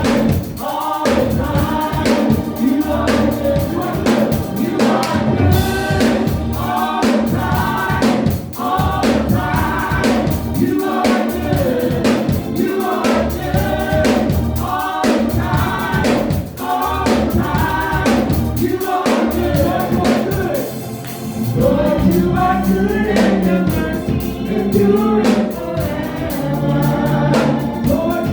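Church choir and praise team singing a gospel worship song, backed by a live band with bass and drums keeping a steady beat.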